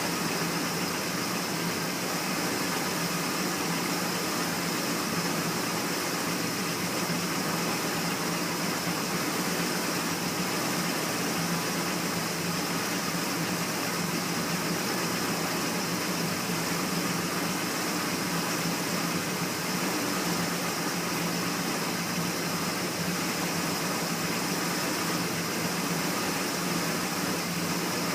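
Ford 400 V8 engine of a 1979 F-150 idling steadily, just refilled with fresh 10W-30 oil.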